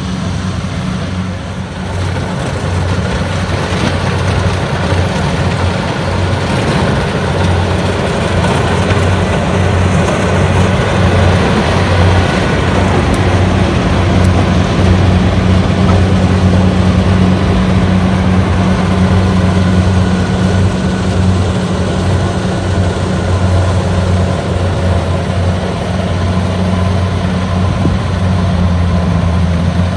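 Kubota combine harvester running as it cuts and threshes rice: a steady low engine hum under a broad rushing noise, a little louder from about two seconds in.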